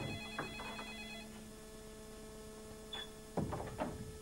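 Desk telephone ringing with an electronic trilling ring; the ring stops about a second in, and the phone is about to be answered. A steady low hum runs underneath, and a short rustle comes near the end.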